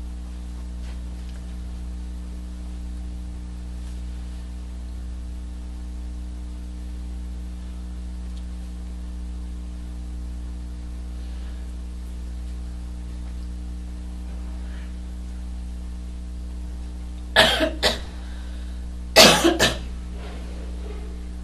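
Steady electrical hum, then near the end two short bursts of a person coughing a couple of seconds apart, each burst two or three coughs.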